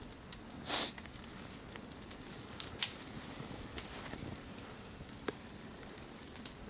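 Hands and a tool working in snow: a short scraping crunch about a second in, then scattered small clicks and crackles over a steady hiss.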